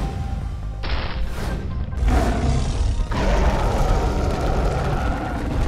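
Dramatic background music over heavy low booms from cartoon fight sound effects, with a sudden louder hit about two seconds in.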